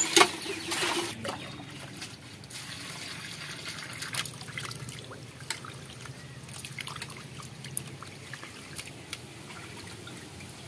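For about the first second, a cast-iron hand pump is worked and gives only a thin trickle of water because the pump is faulty. After that, water sloshes, drips and trickles as small fish are rinsed by hand in a steel bowl of water, with scattered light clicks.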